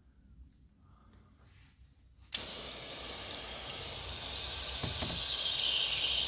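Running water: a steady hiss that starts suddenly about two seconds in and grows a little louder, with faint small handling noises before it.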